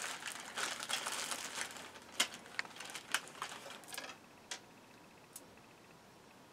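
Plastic zip-lock bags of stone beads being handled: a crinkling rustle for about two seconds, then a few scattered sharp clicks.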